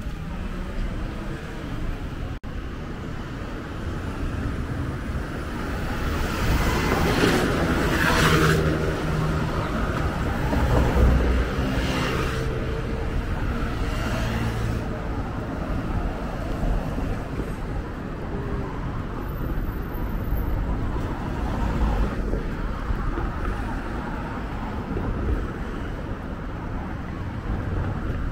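Road traffic at a city intersection: cars, vans and a motor scooter passing close by over a steady rumble, with louder pass-bys about a quarter and about halfway through.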